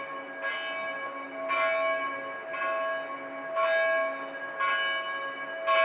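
The poortersklok, a single church bell in the Broederen tower, tolling steadily at about one stroke a second, each stroke ringing on into the next. It is the old gate-closing bell, here rung for the curfew.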